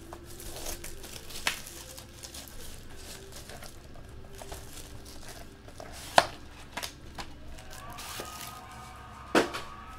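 Hands handling and tearing open a foil trading-card pack, the wrapper crinkling, with three sharp clicks or knocks, the loudest about six seconds in.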